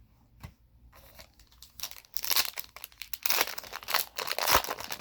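A Panini Prizm trading-card pack's wrapper being torn open and crinkled: a crackling rustle that starts about two seconds in and runs until near the end, after a single soft knock near the start.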